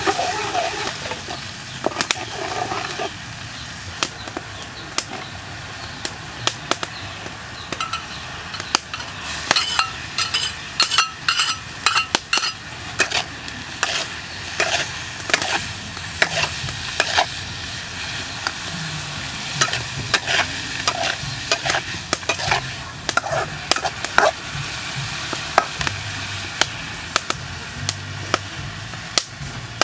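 Metal spatula scraping and clanking against a steel wok while snail meat and chilies are stir-fried, with a steady sizzle from the hot oil. The knocks come in quick runs, thickest from about ten seconds in.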